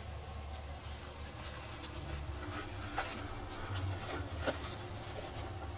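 Small clicks, taps and rubbing from hands handling a 1/6-scale action figure and fitting its chest-camera mount, with a few sharp ticks, the loudest about four and a half seconds in. A low steady hum runs underneath.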